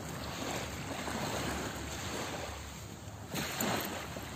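Small waves washing onto a sandy beach, with wind on the microphone; a brief louder rustle about three and a half seconds in.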